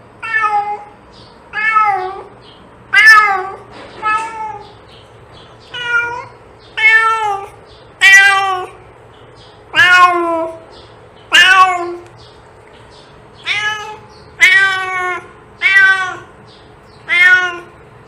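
Domestic cat meowing over and over, about a dozen short meows spaced roughly a second apart, each rising then falling in pitch.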